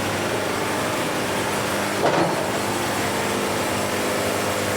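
Band sawmill running steadily, its blade cutting a wide board from an old walnut log that the sawyer finds unusually dry. A steady motor hum sits under an even hiss of cutting.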